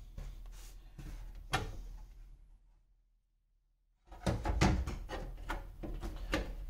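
Polycarbonate plate being handled and fitted into an aluminium computer case. A light click and faint handling noise come first, then a short silent gap, then from about four seconds in a quick run of clacks and knocks of plastic against the metal case.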